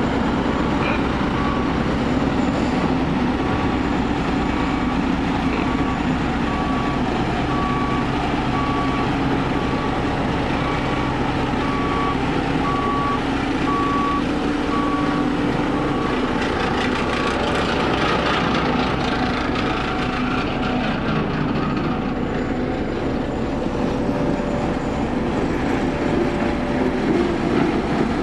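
Steel-wheeled road roller's diesel engine running steadily, with its reversing alarm beeping at an even pace, about one beep every second and a bit, through the first half before it stops.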